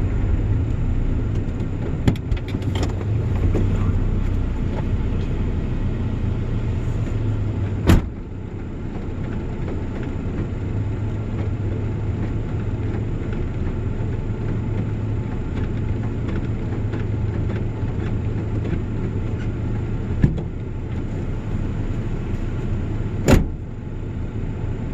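A vehicle driving, heard from inside the cab: a steady low engine and road hum, broken by a few sharp knocks, the loudest near the end.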